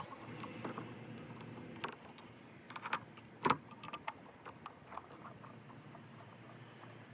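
Scattered light clicks and knocks from hands and tools working on a pickup truck's taillight housing, the loudest about three and a half seconds in.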